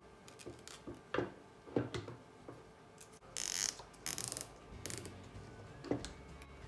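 Scattered plastic clicks and handling knocks, with two short rasping zips about three and a half and four seconds in, as straps are pulled tight around the camera cable.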